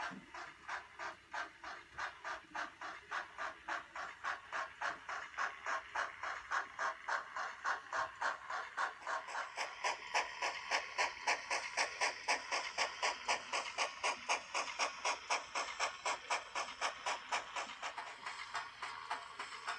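Model narrow-gauge steam locomotive chuffing in a steady rhythm of hissing beats, growing louder and brighter about halfway through.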